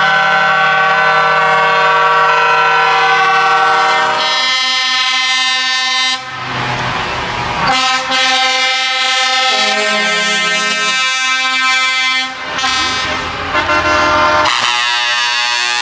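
Truck air horns sounding in long held multi-note chords, several horns at once. The chord changes about four seconds in, and the horns break off briefly around six and twelve seconds in before sounding again.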